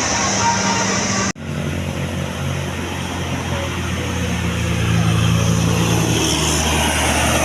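Tour bus diesel engine idling with a steady low hum. The sound drops out for an instant about a second in, at a cut between clips, and no horn tune is heard.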